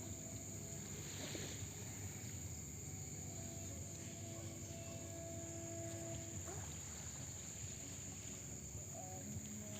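Steady high-pitched insect drone over a low, constant rumble of outdoor noise, with a faint humming tone from about four to six and a half seconds in.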